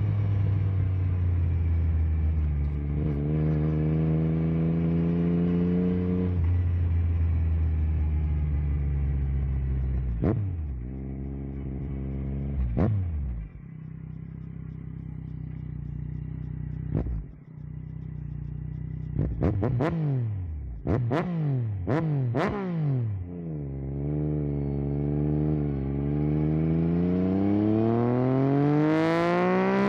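Yamaha Tracer 9 GT's three-cylinder engine running through an unbaffled Akrapovic full exhaust, pulling up through the revs and dropping back several times. About 20 seconds in come a handful of quick throttle blips with sharp drops in pitch, and near the end a long rising pull under acceleration.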